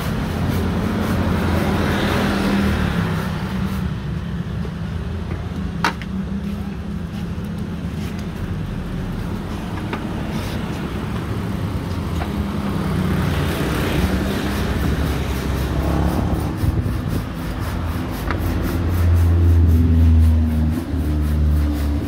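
Roadside traffic: motorbikes and other vehicles passing close by, a steady engine rumble that swells as each one goes past, loudest near the end. A single sharp click about six seconds in.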